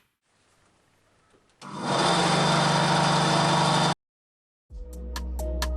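A small electric power tool runs steadily for about two seconds while cutting a piece of off-cut material, then stops abruptly. Music fades in near the end.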